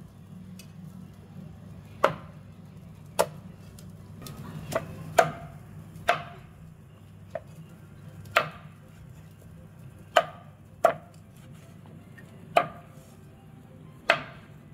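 Cleaver chopping barbecued chicken into pieces on a chopping board: about a dozen sharp chops, unevenly spaced, roughly one a second.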